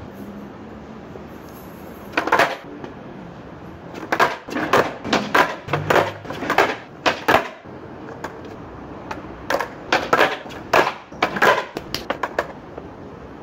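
Skateboard on stone paving during beginner ollie and shove-it attempts: sharp wooden clacks of the tail popping and the deck and wheels slapping back down. One clack comes about two seconds in, then quick runs of clacks from about four to seven and a half seconds and again from about nine and a half to twelve and a half seconds.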